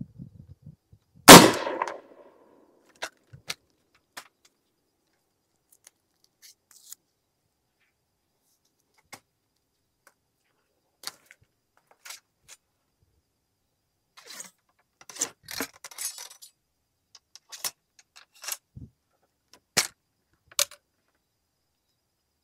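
A single shot from an Enfield rifle musket firing a black-powder paper cartridge, sharp and loud about a second in, with a short echoing tail. Scattered small metallic clicks and clinks follow as the rifle is handled after the shot.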